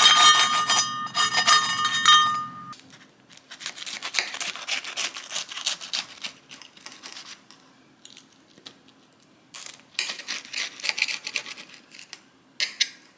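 Music fades out in the first few seconds, then two long stretches of small clattering and rustling handling noise, with a short burst near the end.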